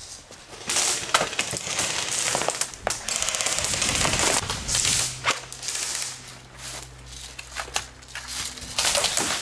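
Crunching and rustling through dry leaves and brush, in loud bursts that begin about a second in, with a quick run of clicks near the middle.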